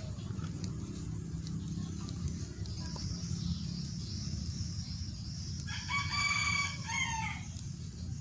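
A rooster crows once, a call of about a second and a half that falls in pitch at its end, about six seconds in, over a steady low hum.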